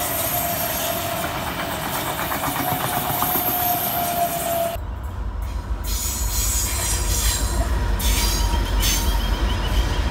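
A double-deck electric passenger train runs past with a steady whine. About five seconds in the sound cuts to a Pacific National NR-class diesel locomotive hauling a container freight train by, its engine a loud low rumble.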